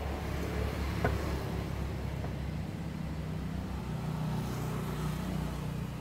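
A motor vehicle engine running, a steady low rumble that grows a little stronger in the second half, with a single sharp click about a second in.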